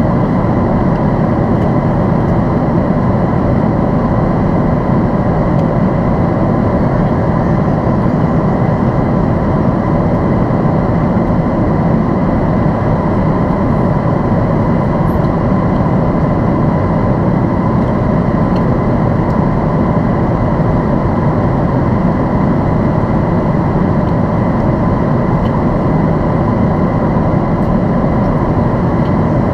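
Steady cabin noise inside a Boeing 767-400ER airliner: an even roar of the engines and airflow, with a thin steady whine on top.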